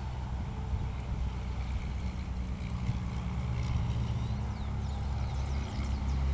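A low, steady engine drone that grows a little louder in the second half, with a few faint bird chirps above it.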